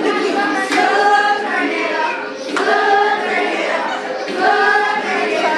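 A group of girls singing a song together, in sung phrases of held notes that begin about every two seconds.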